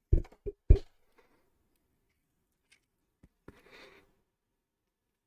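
Three quick knocks of objects set down on a workbench in the first second, the third the loudest, then a faint click and a brief rustle a few seconds in.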